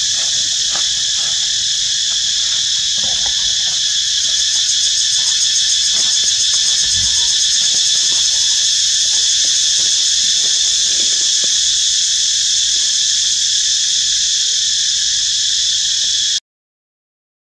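Steady, loud chorus of insects, an unbroken high-pitched shrilling, which cuts off suddenly near the end.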